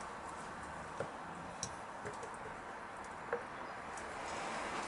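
Three light clicks and taps from the brake caliper piston being handled and pushed into its greased bore, over a steady faint hiss.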